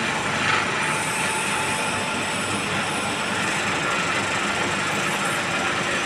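Steady mechanical running noise of a wheel press as a railway wheel is pressed onto its axle, with a brief brighter screech about half a second in.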